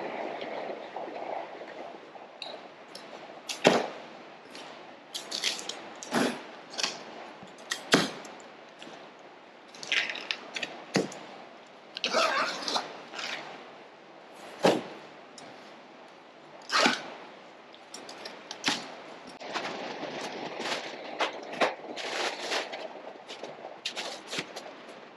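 A strapped cardboard box being unpacked: irregular sharp snaps and cracks as the plastic packing straps come off and the cardboard flaps are pulled open, with plastic wrapping rustling near the end.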